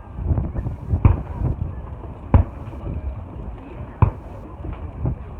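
Fireworks bursting overhead: several sharp bangs a second or so apart over a continuous low rumble.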